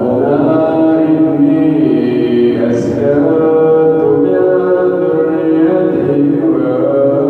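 Melodic Quran recitation by a solo voice, chanting long held notes that shift in pitch every few seconds.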